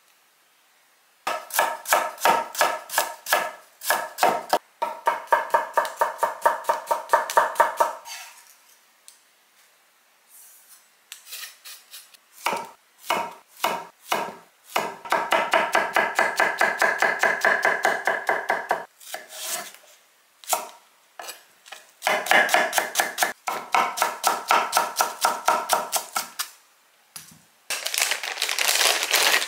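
A santoku knife slicing a cucumber on an end-grain wooden cutting board, in quick, even strokes of about five a second, each one knocking on the board. There are three long runs of slicing with short pauses between them. Near the end comes a crinkling plastic package.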